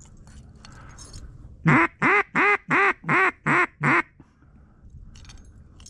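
Hunter's duck call blown in a quick string of seven loud, even quacks, close by, starting about two seconds in and ending about four seconds in.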